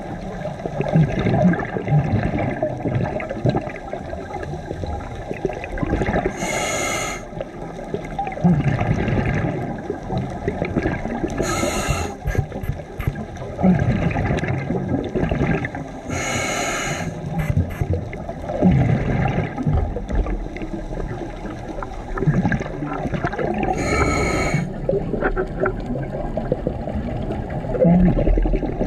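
Scuba diver breathing underwater through a regulator: four short hissing inhalations, about every five to seven seconds, each followed by a long bubbling exhale.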